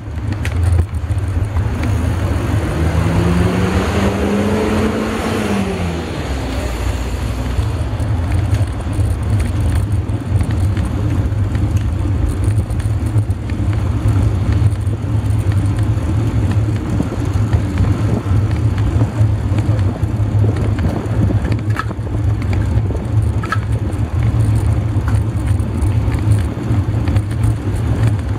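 Steady wind rumble on the microphone of a camera riding on a moving road bike, with road and tyre noise. Between about two and six seconds in, a motor vehicle's engine rises and then falls in pitch.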